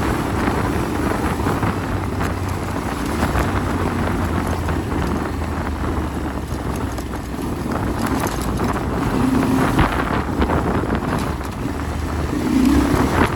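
Yamaha Ténéré 700's parallel-twin engine running steadily while the bike is ridden off-road, with wind rushing over the microphone.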